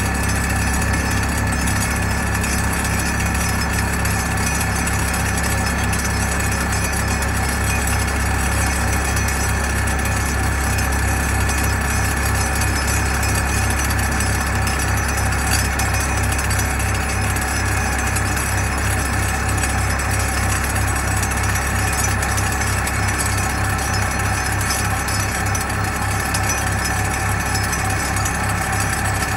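Heavy diesel engine idling steadily: a low, even drone with a faint regular pulse.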